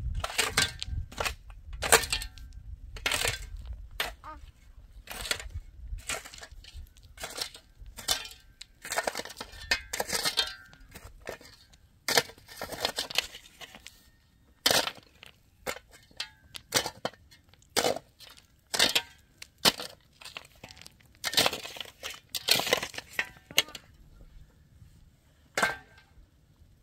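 Metal shovel digging into dry, stony soil: repeated scraping strokes with the clatter of earth and small stones, about one every second or so, some short and sharp, some longer scrapes, thinning out near the end.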